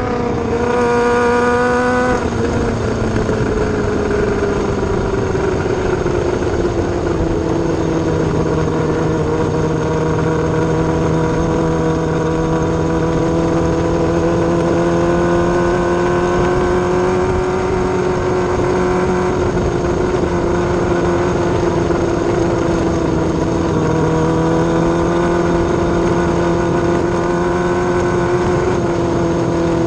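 Yamaha R6 inline-four engine of a micro sprint car heard onboard, running at steady moderate revs; its pitch eases down over the first few seconds, then holds nearly level, dipping briefly and picking up again near the end.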